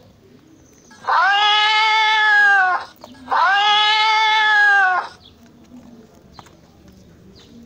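Domestic cat giving two long, drawn-out yowls in a row, each about a second and a half, the pitch rising slightly and then falling away at the end of each.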